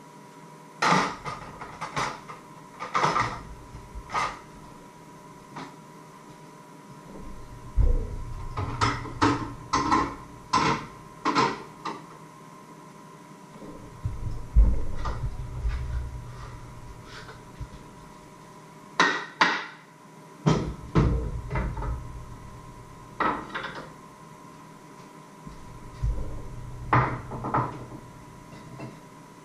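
Kitchen handling noises: scattered knocks and clunks of wood and kitchenware being picked up, moved and set down, in several clusters, with dull low thumps among them. A faint steady tone hums underneath.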